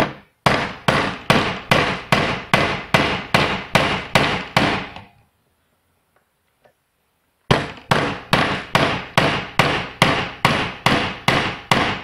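Hammer striking a pointed steel punch held against the metal housing of a VW door lock cylinder clamped in a vise: two steady runs of about a dozen sharp blows each, about two and a half a second, with a pause of about two seconds between them. The blows are knocking a hole through the housing to reach the cylinder's retaining latch.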